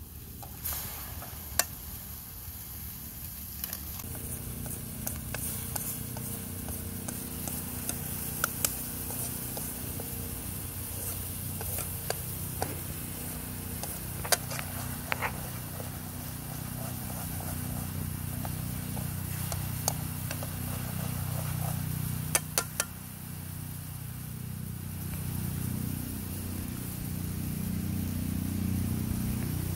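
Kho quẹt (fish sauce, sugar and oil) simmering and sizzling in an aluminium wok over a wood fire, with a steady hiss and a few sharp pops and clicks. A low steady drone runs underneath and grows louder toward the end.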